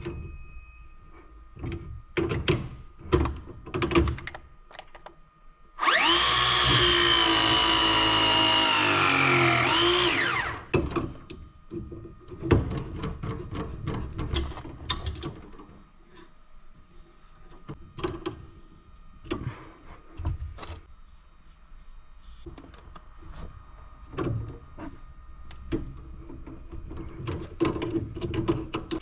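A cordless power tool's motor runs with a loud whine for about four and a half seconds, its pitch sagging steadily as it comes under load, then rising and falling away as it stops. Around it are scattered clicks and knocks of tools and fittings being handled.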